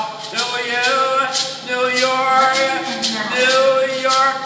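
A man singing in long held notes while shaking a pair of maracas in time, the maracas giving sharp rattling shakes about twice a second.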